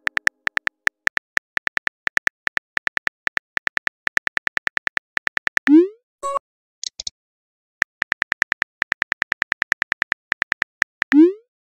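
Synthetic phone-keyboard typing clicks, short even ticks several a second, from a texting-story app. About halfway through comes a rising swoosh as a message is sent, then a couple of short blips; a second run of typing clicks follows and ends in another rising send swoosh near the end.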